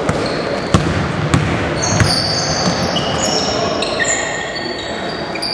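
A basketball bouncing on a hardwood gym floor, three sharp bounces in the first two seconds, followed by sneakers squeaking on the court, over echoing voices.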